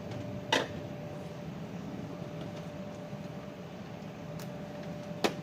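Two sharp clicks, one about half a second in and one near the end, over a steady low hum with a faint high steady tone.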